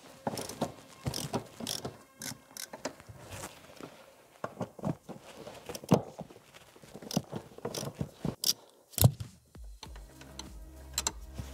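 Ratchet wrench with a T50 Torx socket clicking in short, irregular runs as the seat-rail screws are undone.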